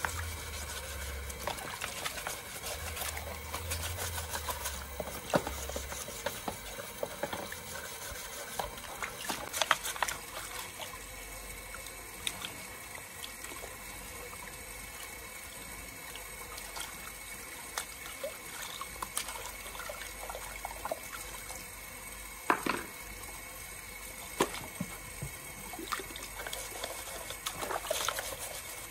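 Water trickling steadily, with scattered sharp knocks and clicks; the loudest knocks come about ten seconds in and again about two-thirds of the way through. A low hum is present at the start and stops about six seconds in.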